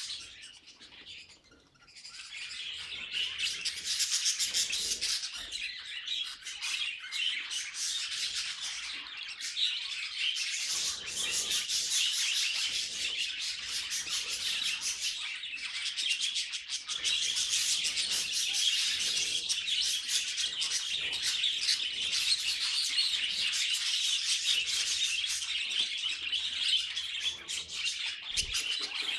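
Budgerigars chirping and warbling in a continuous, fast chatter of high notes. It starts about two seconds in.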